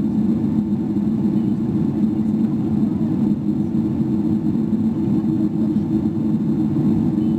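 Steady cabin drone of a Boeing 777-300ER in flight, heard inside the cabin beside the wing: the GE90 engines and the airflow over the fuselage make an even low rumble with no change.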